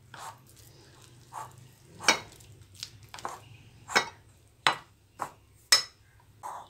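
A hand mixing and kneading flour into a rough bun dough in a glass bowl. Irregular sharp knocks sound as the hand strikes the side of the bowl, with softer stirring noise between them.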